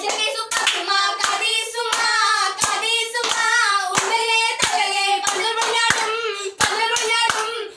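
A woman singing a song while clapping her hands to a steady beat, about one clap every two-thirds of a second, with a brief pause about six and a half seconds in.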